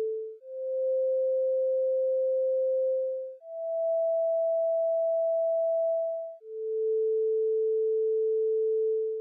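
A run of steady, pure electronic sine tones, each held about three seconds, with a brief fade between notes. The pitch steps up twice, then drops back to the lowest tone near the end.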